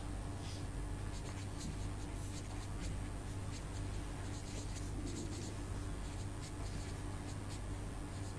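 Writing strokes: a run of short, irregular scratches, over a steady low electrical hum.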